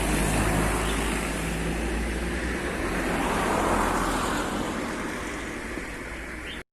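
Street traffic noise: steady low rumble and tyre hiss, with one vehicle passing and peaking about halfway through.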